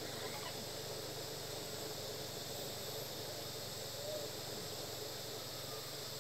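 Steady outdoor background hiss with no clear lory calls, and a faint short note about four seconds in.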